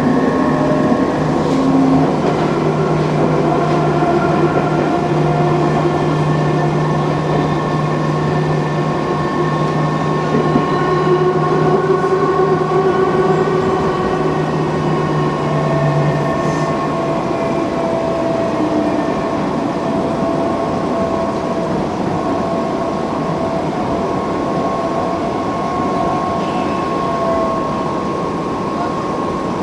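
Electric commuter train running on its rails, heard from inside the front of the car: steady rolling noise under several steady whining tones from the traction motors. A low hum stops about halfway through, and the sound eases off as the train slows into a station near the end.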